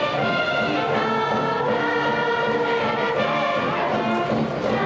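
Brass band music: a tune of short held notes that keeps changing pitch, at a steady level.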